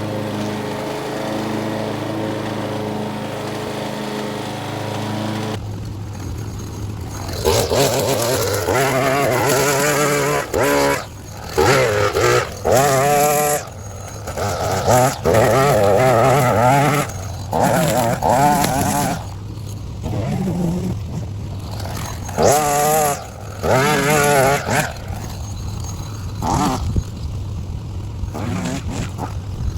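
A power sander running steadily for about five seconds, then a string trimmer (weed eater) engine revving up and down in repeated bursts, its pitch rising and falling with each burst of throttle.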